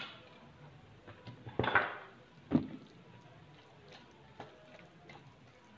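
Kitchen handling sounds of a bowl and utensils: a short knock at the start, then two louder knocks or clatters about one and a half and two and a half seconds in. Faint soft ticks follow as a hand mixes flour into a wet sardine and cabbage mixture in a plastic bowl.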